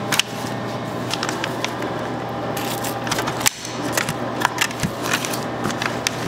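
Busy shop-kitchen background: a steady machine hum under scattered sharp clicks and clatter, which come thicker from about halfway through.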